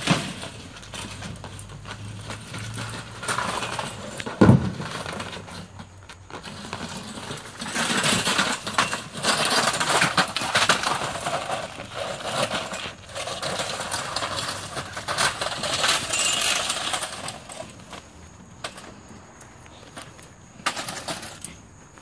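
A deer caught in a soccer net thrashing and dragging the net and its goal poles over pavement and dirt: repeated scraping and clattering, with one sharp loud knock about four and a half seconds in.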